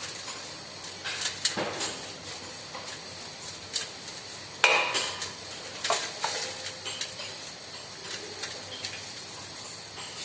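Metal tools and parts clinking and knocking against each other during scooter repair work, a scattering of separate sharp strikes, some with a short metallic ring.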